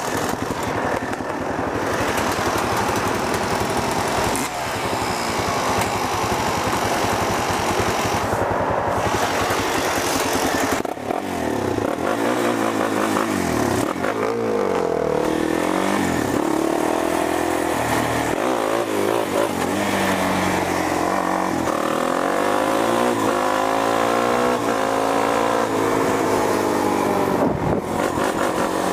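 Quad bike (ATV) engine running under throttle at riding speed, its pitch sweeping up and down again and again as it revs and eases off, with the sweeps coming thick and fast in the second half.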